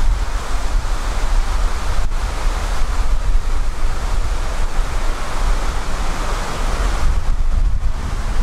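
Wind buffeting the microphone: a steady rushing noise with a heavy, fluctuating low rumble.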